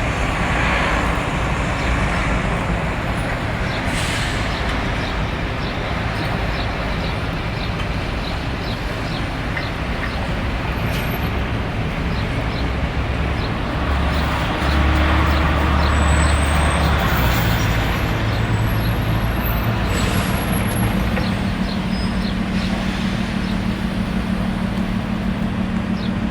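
City street traffic noise: a steady wash of passing vehicles. A low engine hum comes in for a few seconds about halfway through, and another steady hum sets in during the last third.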